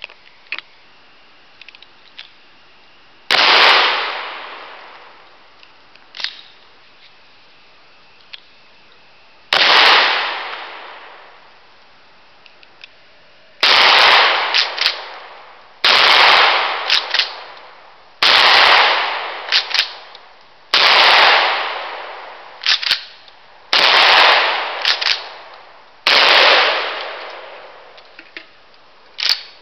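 Stevens Model 620 12-gauge pump-action shotgun firing eight loud shots, each with a long fading echo. The first two are several seconds apart, then six come in quick succession about every two to three seconds, with the clack of the slide being pumped between them.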